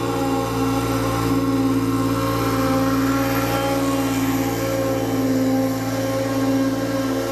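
Encore Rage 32-inch stand-on zero-turn mower running steadily at mowing speed through tall grass, its engine holding an even pitch. A rushing noise swells for a few seconds in the middle as the mower passes close.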